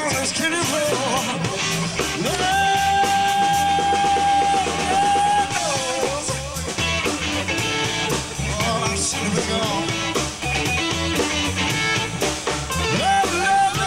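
Live electric blues band, with electric guitar, bass and drum kit, playing an instrumental passage of a blues number. A long held lead note starts about two seconds in and bends down as it ends, and another begins near the end.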